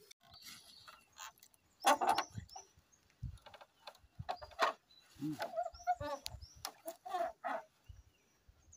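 Chickens clucking in short, separate calls, with high little chirps and a few sharp knocks among them.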